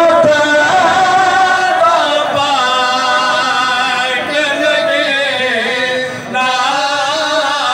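A man's voice chanting a noha, a Shia mourning lament, through a PA microphone, in long wavering held notes with a short break about six seconds in.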